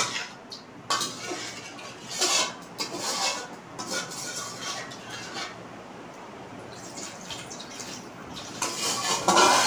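A metal spatula clinking and scraping in a metal kadhai while water is poured in from a steel bowl to thin the fried masala into curry gravy. Sharp clinks come at the start and about a second in, scattered knocks follow, and a louder cluster of clatter comes near the end.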